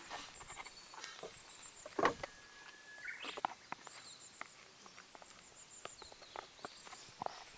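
Scattered light clicks and taps from handling cooking gear, with one louder knock about two seconds in, over faint outdoor ambience that includes a few short chirps.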